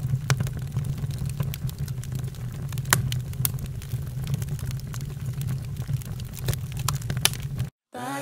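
Open fire burning, with frequent sharp crackles and pops over a steady low rumble; it cuts off abruptly a little before the end.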